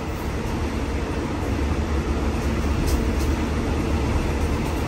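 Passenger train running, heard from inside the carriage: a steady low rumble with an even wash of rail noise and a few faint ticks about three seconds in.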